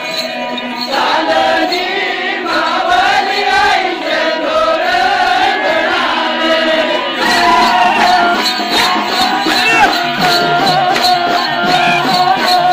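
Adivasi pavri, wind instruments made of gourd and bamboo, playing a wavering, winding melody over a steady drone, with rattling percussion keeping a beat that grows stronger in the second half.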